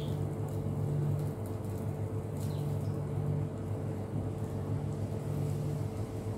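A steady low machine hum with a pulsing undertone that comes and goes every second or two. Faint light clicks of a spatula and fork handling food on a plate sound over it.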